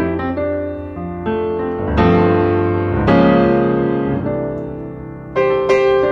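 Background piano music: slow chords struck and left to ring and fade, with fresh chords about two and three seconds in and again near the end.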